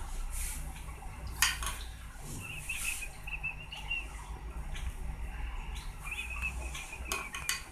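Metal spoon scraping and tapping against a glass baking dish and a plastic bowl as thick béchamel sauce is spread, with a few sharp clinks.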